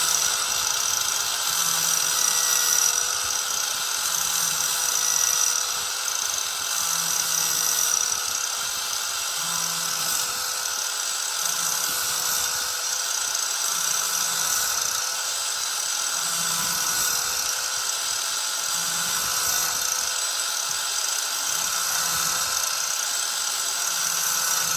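Small electric angle grinder with an 80-grit disc running at a steady high whine, grinding the cutting edge of a steel lawn mower blade to sharpen it.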